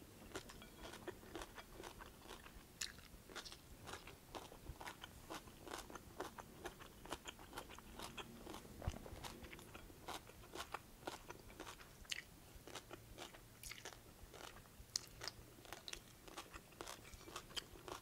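Close-miked chewing of a mouthful of stir-fried kohlrabi noodles with julienned carrots and bean sprouts: faint, irregular crunches and wet mouth clicks, several a second.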